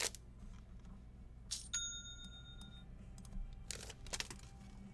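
A single bright ding from a notification chime, a ringing tone that dies away within about a second, announcing an incoming order. Soft rustles of cards and pack wrappers being handled come just before it and again a little later.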